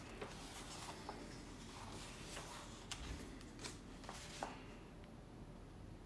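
Pages of a paperback book being turned by hand: faint paper rustling with several small ticks and crinkles.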